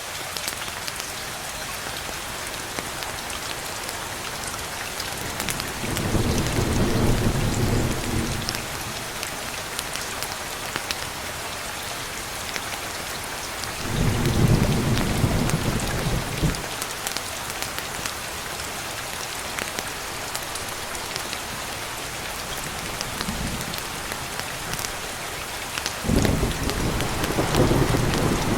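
Steady heavy rain with a patter of drops, broken by low rolling thunder rumbles: one about six seconds in, a louder one around fourteen seconds, a short one later, and another starting near the end.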